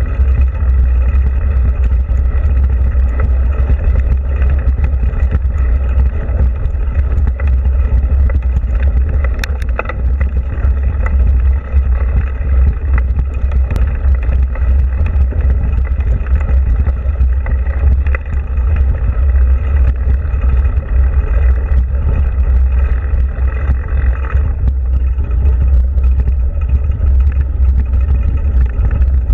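Steady heavy wind rumble on the microphone of a mountain bike in motion, over the hiss and rattle of knobby tyres rolling along a packed dirt and gravel trail, with an occasional light click.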